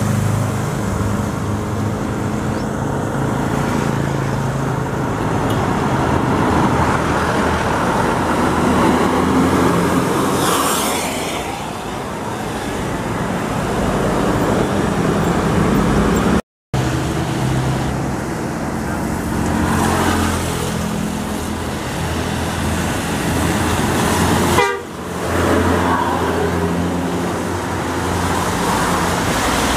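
Buses and traffic passing on a road, with bus horns tooting over engine noise. The sound drops out for a moment about halfway through.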